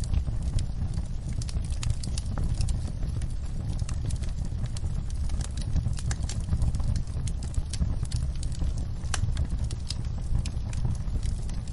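Wood fire in a fireplace crackling, with frequent irregular sharp pops over a steady low rush of rain.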